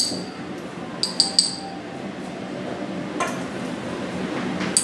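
Metal measuring spoons clinking against a small glass spice jar: three quick light clinks about a second in, then single clinks a little after three seconds and near the end.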